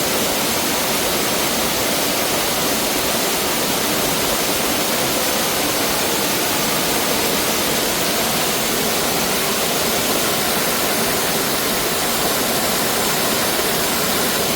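Mountain stream water rushing steadily over rocks, a constant hiss with no breaks.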